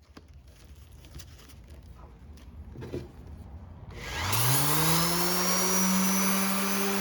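Faint handling clicks, then an Ingco electric orbital sander switched on about four seconds in: its motor spins up in a rising whine and then runs steadily at speed.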